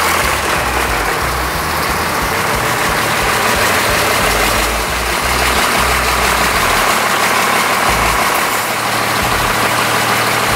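12-valve Cummins straight-six diesel in a C10 pickup running steadily as the truck pulls away at low speed.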